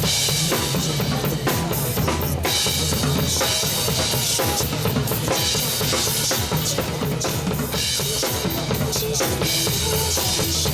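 Instrumental break in a pop song: backing music with a steady drum-kit beat and no singing.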